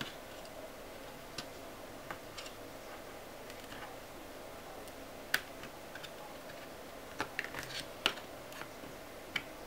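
Faint, scattered light clicks and taps as an LED backlight strip is fitted and pressed into the metal lamp reflector of an LCD panel. The clicks come more often from about seven seconds in, with the sharpest one about five seconds in, over a low steady hiss.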